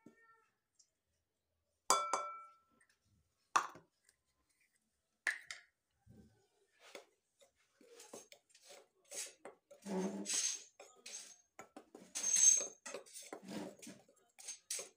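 Two sharp, ringing clinks against a glass mixing bowl, then, from about halfway through, a metal spoon stirring dry pancake mix in the glass bowl with a run of quick scraping clinks against the glass.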